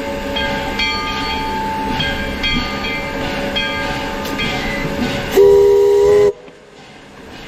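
Virginia & Truckee No. 25 steam locomotive on the move, its bell ringing about once a second. About five and a half seconds in, the steam whistle gives one short blast of about a second, the loudest sound here.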